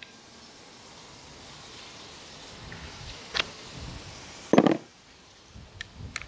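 Handling clicks and knocks from a DeWalt DCF620 cordless screwdriver body and its metal bit as the bit is swapped in the hex chuck: a sharp click a little past three seconds in, one heavy knock about four and a half seconds in, and a few small clicks near the end, over a background hiss that swells and then drops after the knock.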